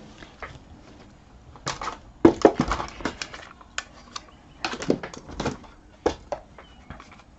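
Clusters of light clicks and taps as craft materials are handled on a tabletop: ribbon, paper and tools being picked up and set down.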